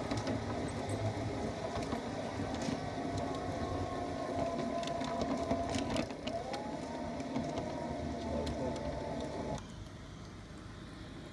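Garden-scale model streetcar's electric motor and gearing running, a steady mechanical whine with scattered clicks, heard from on board the car. The whine glides up in pitch a little past the middle. Near the end the sound drops to a much quieter background.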